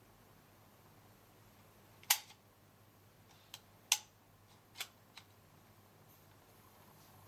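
Sharp plastic clicks from a maxi four-colour photo ball pen being fitted together and handled: five clicks over about three seconds, the first and third loudest.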